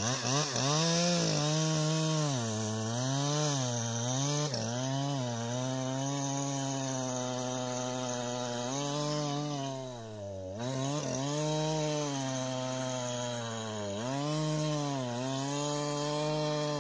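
Poulan Pro PR5020 chainsaw's two-stroke engine running under load as it cuts through a log, its pitch repeatedly dipping and recovering as the chain bites into the wood. The deepest dip comes about ten seconds in.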